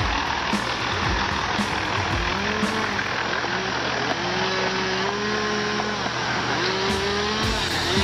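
Wheel loader's diesel engine running under load, its pitch rising and falling several times.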